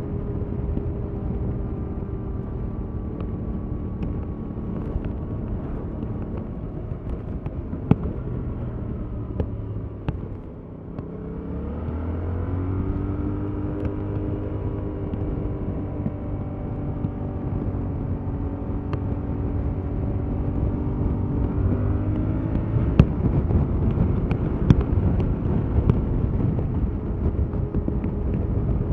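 Yamaha MT-07's stock-exhaust parallel-twin engine running under way. About ten seconds in the revs drop and the note sinks as it eases off, then the pitch rises as it accelerates and holds steady, and it climbs once more near the end.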